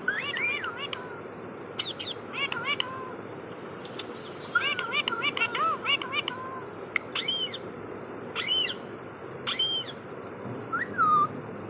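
Parrots calling in bursts of short chattering calls that bend up and down in pitch, with a few sharper, higher squawks in the second half and a couple of falling whistles near the end, over a steady background hiss.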